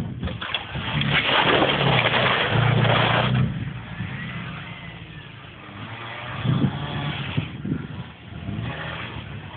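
Renault 11 and Škoda 120 derby cars' engines revving hard on a dirt track. The engine noise is loudest for the first three seconds, then drops to a quieter, uneven running note with a brief louder rev about two-thirds of the way through.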